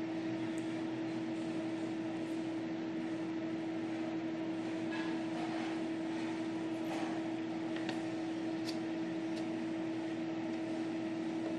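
A steady mechanical hum at one constant pitch, over an even background noise, with a few faint ticks in the middle.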